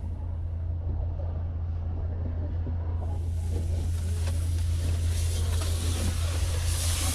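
A vehicle engine running steadily with a low drone. A broad hiss rises over it about three seconds in.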